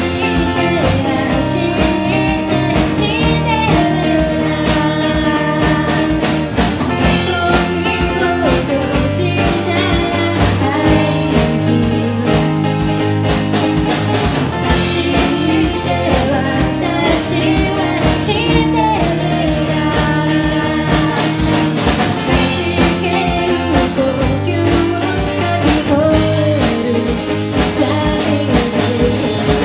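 Live small band playing a rock song: a woman singing over strummed acoustic guitar, electric bass and a drum kit.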